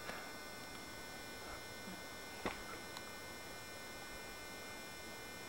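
Faint steady hiss and hum with thin high whining tones, the recording's own background noise, with one soft click about two and a half seconds in.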